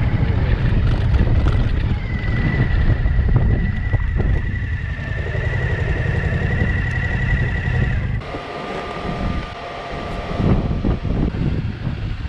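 Wind rushing over the microphone of a moving Suzuki V-Strom motorcycle, with a steady high whine above it. About eight seconds in the wind noise drops away abruptly, leaving quieter, patchy sound.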